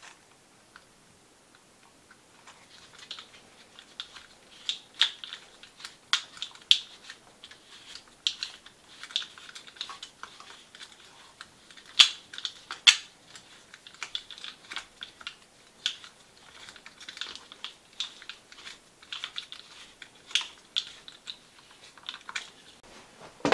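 Irregular light clicks, taps and rustles of hands handling small plastic parts and wiring inside an RC truck's chassis, with one sharper click about halfway through.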